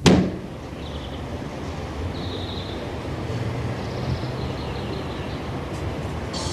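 A door slams shut once, sharply, then a steady low rumble of street traffic carries on.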